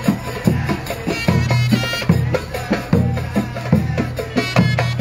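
Egyptian street folk music: large double-headed bass drums (tabl baladi) beating an even rhythm of about two to three strokes a second, under a high melody line.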